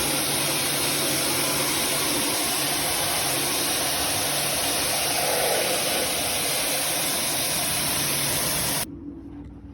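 Pressure washer running, a steady hiss of water spray over a low motor hum, cutting off sharply about nine seconds in.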